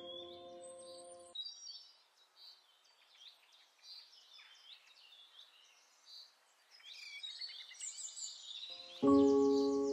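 Background music with birdsong chirping: a held chord fades out about a second in, high bird chirps and whistles carry on through, and a new chord is struck near the end.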